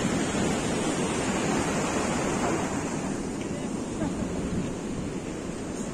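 Sea surf washing steadily onto a sandy beach, with wind buffeting the phone's microphone.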